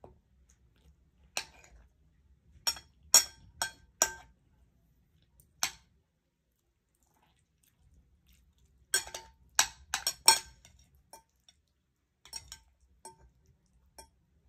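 Metal spoon and fork clinking against a plate while eating: sharp, briefly ringing clinks in two main clusters, with a few lighter ones between.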